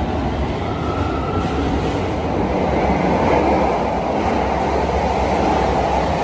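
Electric commuter trains in an underground station. A departing train's rumble carries on as it goes into the tunnel, then a Toei Shinjuku Line train runs into the platform with a loud, steady rumble of wheels on rail that builds to a peak about halfway and stays strong. There is a brief high whine about a second in.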